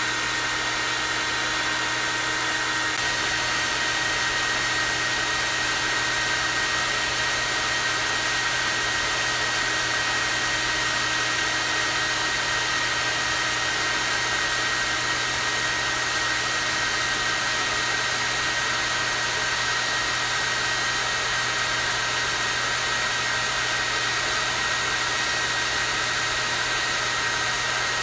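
Hair dryer running continuously on its strong (turbo) setting: a steady rush of air with a high-pitched whine, unchanging throughout.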